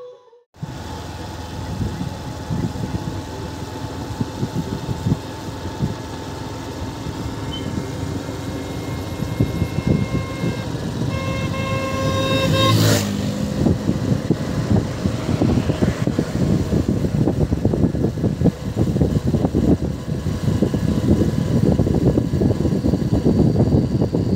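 Bajaj Platina motorcycle's single-cylinder engine running steadily while riding along a road, with low fluttering road and wind noise. A vehicle horn sounds in a few short blasts a little before halfway, ending with a sharp loud crack.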